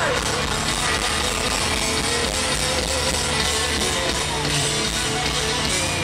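Hard rock band playing live: distorted electric guitar over a drum kit, loud and steady.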